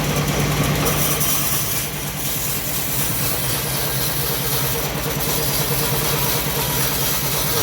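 Engine of a homemade bandsaw sawmill running steadily, with an even low pulsing beat and a slight dip in level about two seconds in.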